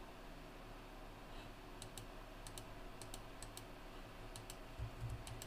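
Faint, irregular clicks of typing on a computer keyboard, over a low steady hum.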